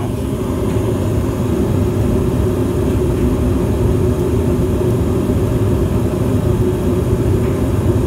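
Evcon/Coleman 80% low-NOx gas furnace running with its cabinet open: a loud, steady, deep rumble that holds even throughout.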